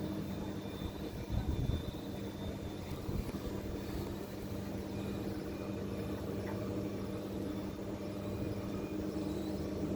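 Vacuum cleaner running steadily with a motor hum, with a brief louder bump about a second and a half in.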